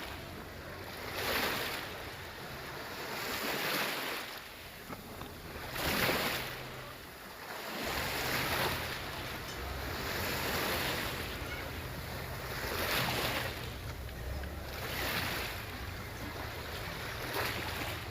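Sea waves washing onto the shore, a swell of surf about every two seconds. From about eight seconds in, a steady low rumble sits underneath.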